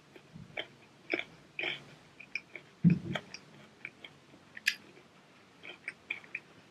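A child chewing food close to the microphone: soft wet mouth clicks and smacks at irregular intervals, with one louder chew about three seconds in.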